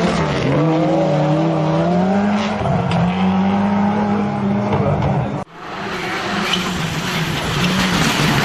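Rally car engine running hard, its pitch rising and falling with throttle and gear changes. About five and a half seconds in it cuts off abruptly to another rally car's engine.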